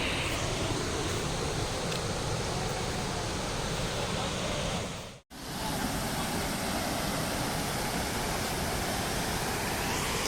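Steady rushing roar of a large waterfall, Dassam Falls, pouring over rock. The sound drops out for a moment about five seconds in and comes back unchanged.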